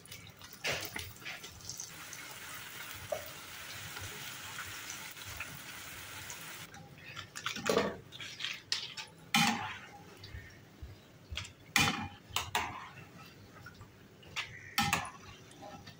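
Strips of pastry frying in hot oil, a steady high sizzle that cuts off suddenly after about six and a half seconds. Then a steel mesh strainer knocks and scrapes against the pan several times as the fried pieces are lifted out.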